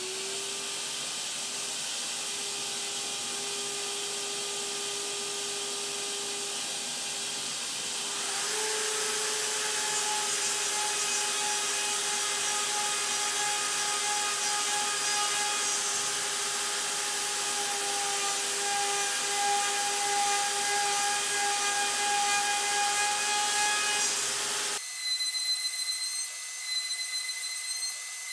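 Vacuum cleaner and the CNC router's spindle running while it drills holes in a sacrificial board: one motor spins up at the start to a steady hum, and a second, louder and higher, joins about eight seconds in. Near the end the noise drops away to high whistling tones that step up and down in pitch.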